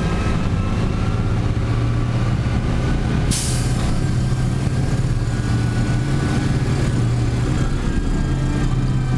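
Farm tractor's diesel engine running steadily under load, a deep even drone, with a short hiss of air a little over three seconds in.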